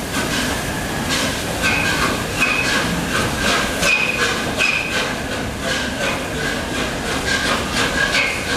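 LNER A4 steam locomotive No. 4464 Bittern hissing steam, with a soft regular beat about twice a second and some intermittent high tones over it.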